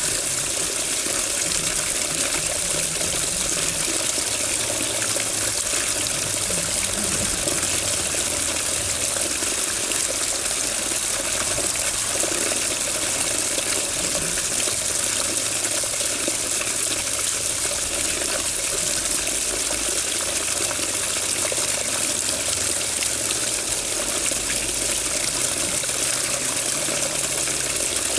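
Water running steadily and continuously, with no pauses or changes.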